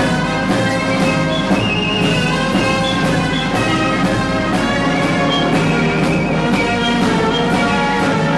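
Orchestral music with brass over a steady beat of about two strokes a second, played from a 1950s stereo demonstration tape.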